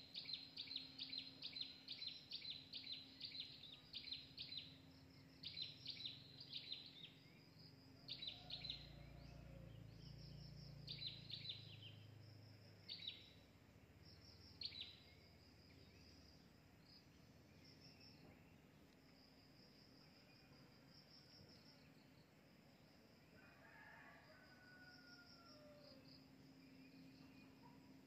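Faint outdoor ambience with bursts of rapid, high chirping notes that thin out and stop after about fifteen seconds, and a low rumble around ten seconds in.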